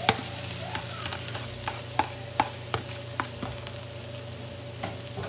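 Chopped green onion and shiitake mushrooms sizzling in hot oil in a steel wok, with a slotted metal spatula scraping and clicking against the wok as they are stirred. This is the aromatics being fried slowly until fragrant.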